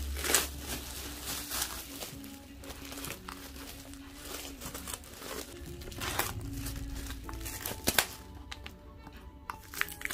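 Crinkling of tight plastic shrink wrap on an album being handled, with a few sharper crackles, the loudest about eight seconds in. Soft background music plays underneath.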